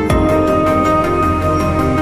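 Background music: sustained tones over a quick, steady pulse.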